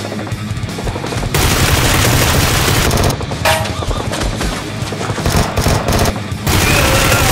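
Rapid automatic gunfire in bursts, dubbed machine-gun sound effects rather than the blasters' own sound, over background music; the heaviest firing comes about a second in and again near the end.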